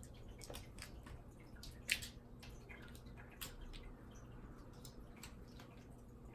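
Cat playing with a feather teaser wand on a wooden floor: scattered light taps and clicks from paws and the wand, with one sharper tap about two seconds in.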